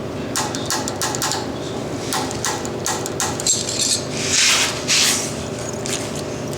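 A string of sharp clicks and knocks from tools and fittings being handled, with a short hiss about four and a half seconds in, over a steady low hum.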